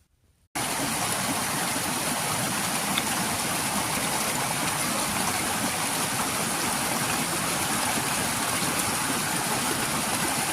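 A steady, even rushing noise that cuts in suddenly about half a second in, with a faint high hiss above it.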